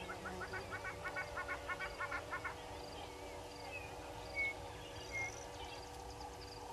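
Wild birds calling: a fast run of repeated calls, about five a second, that stops about two and a half seconds in, then two short clear whistles, the loudest sounds. A faint high tick repeats at a steady pace throughout.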